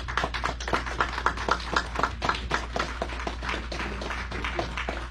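A small gathering applauding: many hands clapping irregularly, thinning out near the end.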